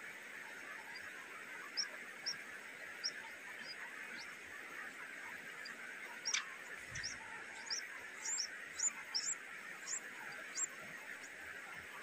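Nestling birds cheeping for food: short, high cheeps that start about two seconds in and come thicker and louder in the second half, over a steady high buzzing drone.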